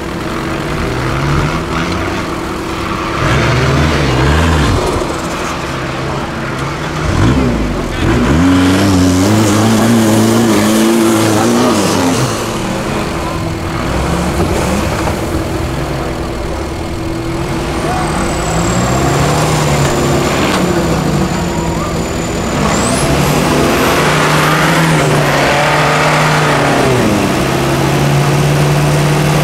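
Engines of modified off-road 4x4 trial vehicles revving hard and dropping back again and again as they claw up steep sandy banks, at times two engines at once.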